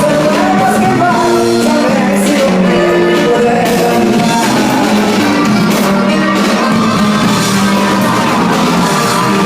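Live regional Mexican band music with a man singing, loud and steady, with the crowded-hall sound of a phone recording at a concert.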